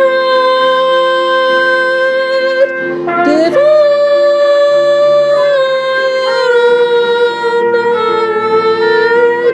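Background music: a slow melody of long held notes, each lasting a second or more.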